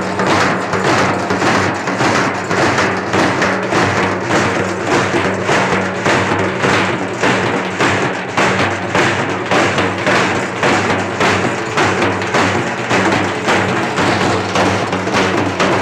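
Halgi frame drums beaten with sticks in a fast, steady rhythm.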